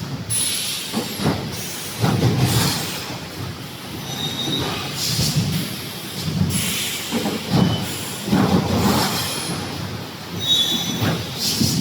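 Wire-mesh welding machine of a 3D EPS sandwich-panel production line running, with irregular loud clanking surges and brief high metallic squeals.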